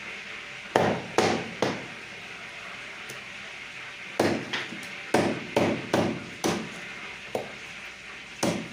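Butcher's cleaver chopping through chicken in repeated sharp knocks: three about a second in, then a quicker run of about six, and a couple more near the end.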